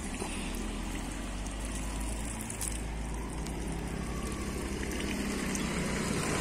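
Thin stream of spring water trickling from a wall spout and splashing into cupped hands, steady throughout.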